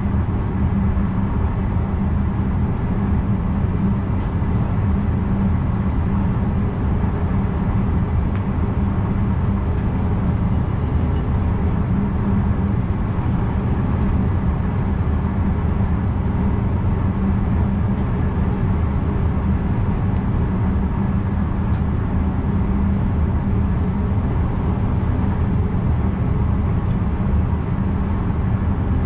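VIRM double-deck electric train running at speed, heard from inside the driver's cab: a steady, deep rumble of wheels on rails with a few faint ticks.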